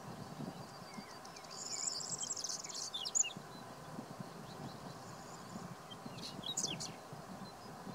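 Male whinchat singing: two short, scratchy phrases of buzzy, rattling notes mixed with high whistles, the first about a second and a half in, the second about six seconds in.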